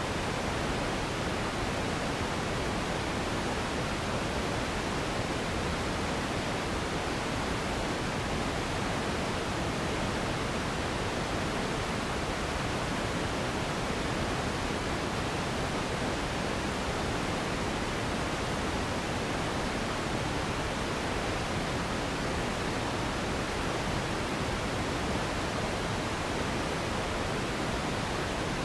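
Steady, unchanging synthetic noise played as a sleep and relaxation sound: an even hiss weighted toward the lower pitches, in the manner of pink noise.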